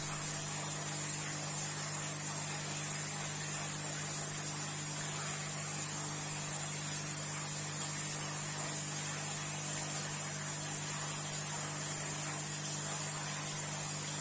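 Steady electrical mains hum with a faint even hiss from the running aquarium equipment (filters and air pump), unchanging throughout.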